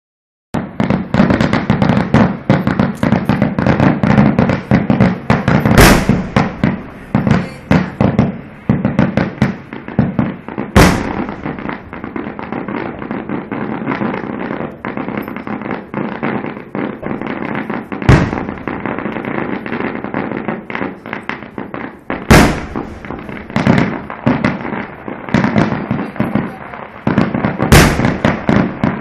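Aerial fireworks bursting: a dense run of crackling pops, broken by five much louder sharp booms spaced several seconds apart.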